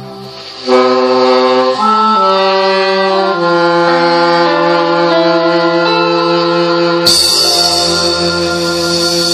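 Instrumental music: held notes moving from chord to chord every second or so, in a wind-like, reedy timbre. A brighter, fuller passage comes in sharply about seven seconds in.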